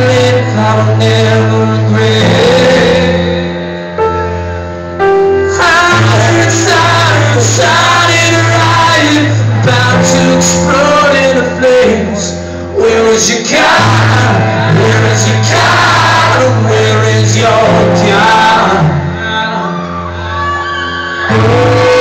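Live acoustic rock song: a man singing over held low notes that change every few seconds, with short quieter passages between phrases.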